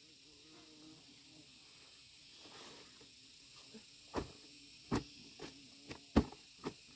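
Steady high hiss of insects, with a series of six short, sharp snaps or knocks in the last three seconds, the loudest about six seconds in.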